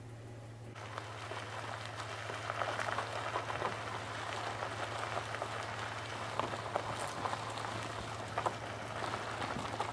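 A car rolling slowly over gravel: tyres crunching and popping small stones, over a low steady engine hum. The crunching starts about a second in.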